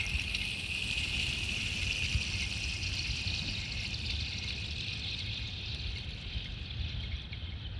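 Thin pond ice ringing after a thrown stone has landed on it: a steady high whine that sinks slightly in pitch and slowly fades.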